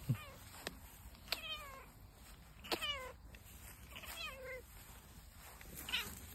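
Long-haired tabby cat meowing repeatedly: about four short calls, each falling in pitch, with a brief low thump at the start.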